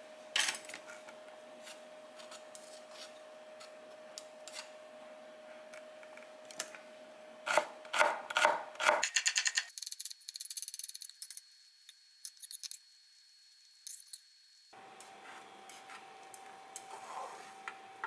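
A Seki Magoroku chef's knife chopping red onion on a wooden cutting board: scattered knocks of the blade on the board, then a quick run of strikes. About ten seconds in the chopping turns into a rapid, high-pitched patter of taps, sped up. Near the end the chopping stops, leaving a steady hum.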